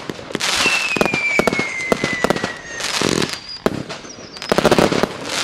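A 1.2-inch, 100-shot fireworks cake (FP B328) firing in quick succession: sharp launch reports and bursts with crackling, and a whistle about a second in that slides down in pitch for about two seconds.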